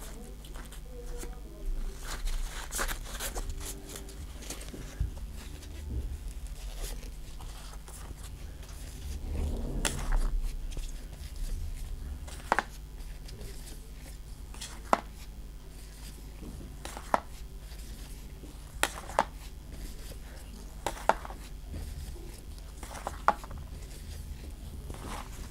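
A stack of Pokémon trading cards handled in gloved hands, each card slid from the front to the back of the stack with a short sharp flick, about one every two seconds in the second half, between stretches of rustling. A low steady hum runs underneath.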